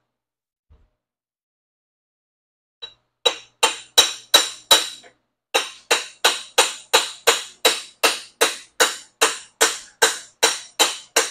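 Hammer blows ringing on the steel headset cup of an e-bike frame, driving the headset cup and bearing out. A quick run of five blows comes first, then after a short pause a steady series of about two and a half blows a second.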